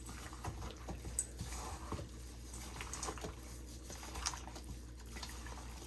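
Gloved hands mixing and squeezing raw chicken pieces with wet curry seasoning in a bowl, giving soft, irregular squelches and small clicks over a low steady hum.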